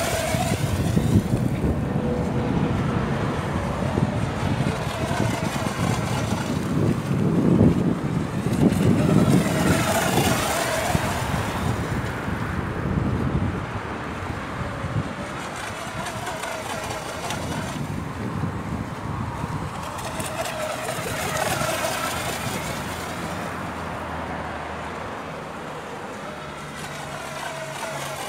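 Electric RC mono-hull speedboat on a 3S LiPo, its motor whining and hull hissing through spray as it planes across the water, swelling and fading as it runs nearer and farther.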